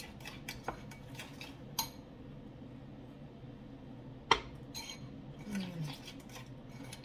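A metal spoon clinking against a bowl while stirring a thick mayonnaise dipping sauce, a few scattered clinks with one sharp knock about four seconds in.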